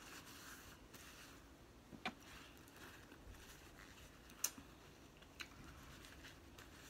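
Quiet eating and food-handling sounds: soft paper-napkin rustling in the first second, then three short sharp clicks, the loudest about four and a half seconds in, as food is picked apart and chewed.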